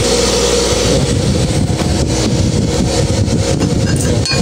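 Electric clutch motor of an industrial sewing machine running steadily with a constant hum and whirr. It is a flood-soaked motor, left running to warm up and dry out.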